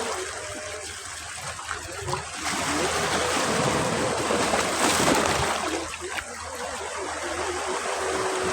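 Sea waves breaking on a beach: the surf swells about two and a half seconds in, is loudest around five seconds, then eases back to a steady wash.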